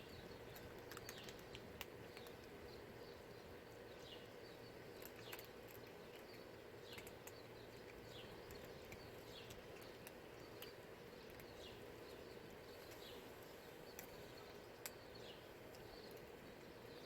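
Faint, irregular crunching clicks of cats chewing dry kibble, with short high downward chirps of birds about once a second over a low steady hum.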